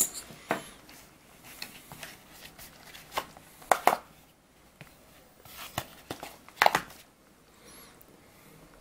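Close handling noise: an irregular string of sharp clicks and knocks with light rustling between, as small metal and glass atomizer parts and the camera are handled; the loudest knocks come about three to four seconds in and again near seven seconds.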